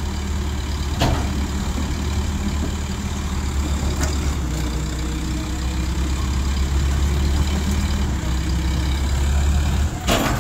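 Diesel engines of ACE hydraulic mobile cranes running steadily under load while hoisting an overturned truck: a deep, steady drone that drops away shortly before the end. A few short knocks come through, about one, four and ten seconds in.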